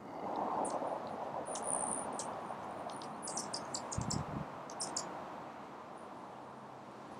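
Hummingbird giving a series of very high, short chip notes, with a quick run of them about three and a half seconds in and a few more near five seconds, over a steady outdoor background hiss. A brief low thump comes about four seconds in.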